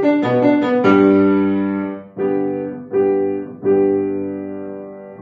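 Grand piano playing a fast run of notes, then the closing chords of the piece: a held chord followed by three more struck chords, the last left to ring and fade.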